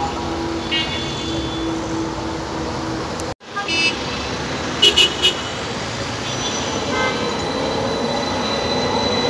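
Street traffic noise with short horn toots as a yellow Alexandria Ramleh-line tram pulls out of the stop. Three quick sharp beeps come about halfway through, and a faint rising whine near the end as the tram gathers speed.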